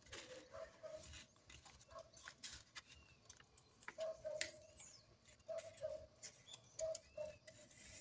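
A sheet of sulfite paper being folded and pressed flat by hand on a wooden tabletop: faint rustles, crinkles and light taps. Short low tone-like chirps recur irregularly behind it, loudest about four seconds in.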